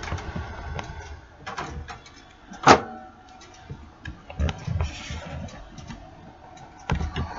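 Light clicks, knocks and rumbling handling noise from a handheld camera being moved about, with one sharp, loud click a little over a third of the way in.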